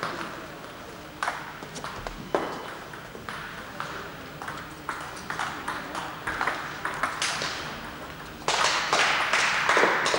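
Table tennis balls ticking sharply and irregularly off bats and tables, from several games being played at once. About eight and a half seconds in, louder clapping starts and carries on.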